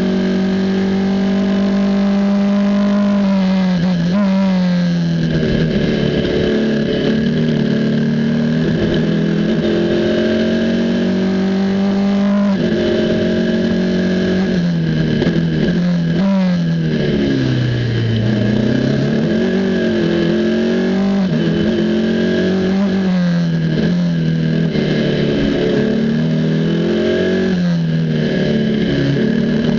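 Formula 4 race car's turbocharged four-cylinder engine at racing speed, heard from on board, its note climbing through the gears and dropping sharply on braking downshifts several times, with the deepest drop about two-thirds of the way through.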